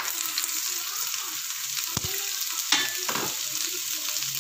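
Hot tempering oil sizzling steadily in a non-stick pan as chopped vegetables are tipped in from a steel bowl, with a few knocks about two and three seconds in.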